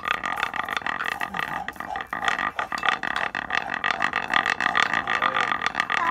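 Ribbed wooden guiro scraped back and forth with a metal rod: a continuous, dense rasp of rapid clicks.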